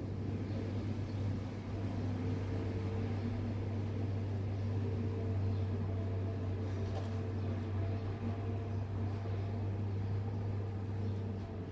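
Steady low machine hum with a light noisy hiss over it, unchanging throughout, with one faint click about seven seconds in.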